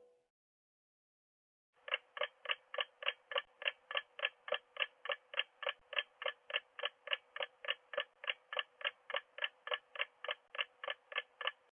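Clock-style ticking sound effect of a quiz countdown timer: even, short ticks about three a second, starting about two seconds in.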